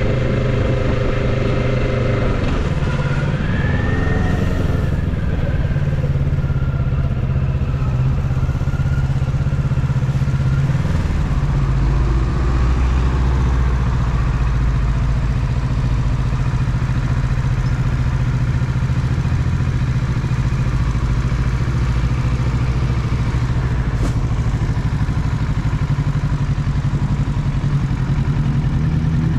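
Kawasaki Ninja 650's parallel-twin engine at low revs, slowing at first and then idling steadily while the bike waits at a stop.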